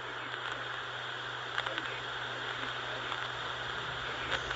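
Steady hiss of a radio receiver on an open amateur repeater channel, carrying dead air between parts of a spoken weather announcement, with a few faint clicks.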